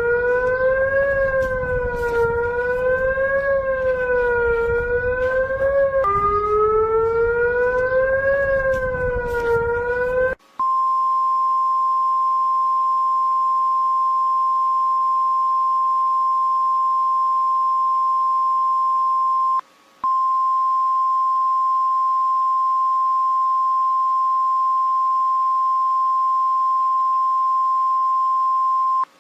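Emergency alert alarm played back: first a wavering siren-like tone sliding slowly up and down over a noisy hum for about ten seconds, then a steady single-pitch alert tone held unbroken except for a brief dropout midway.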